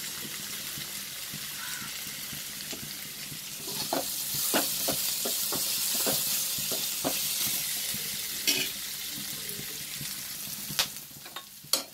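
Sliced onions frying in a metal kadai, a steady sizzle that grows louder from about four seconds in as a metal spoon stirs them, with short scrapes and knocks of the spoon against the pan. Two sharp clicks near the end.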